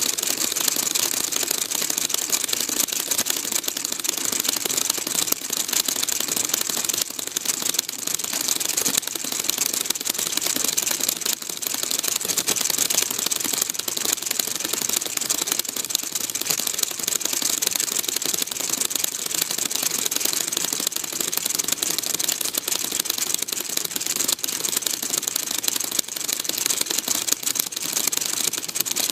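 Paper film projector kit running, its small mechanism clattering in a rapid, steady run of fine clicks as it advances the printed paper film, with a strong high hiss over it.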